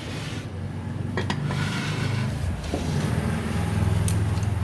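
A low, steady engine-like hum that grows louder towards the end, with a few light metallic clicks of typewriter parts being handled.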